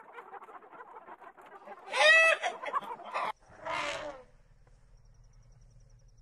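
Domestic hens and a rooster clucking together, with one loud pitched squawk about two seconds in; the sound cuts off abruptly just after three seconds. A short harsh call follows, then only a faint low drone.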